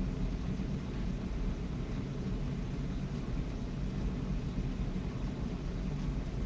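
Steady low rumbling background noise with no clear events in it.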